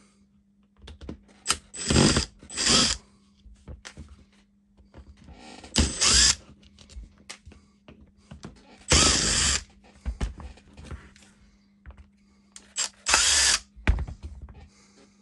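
Cordless power driver running in short bursts to back screws out of a small tool's plastic clamshell: about five runs of a second or less, two of them close together early on, with small clicks of handling in between.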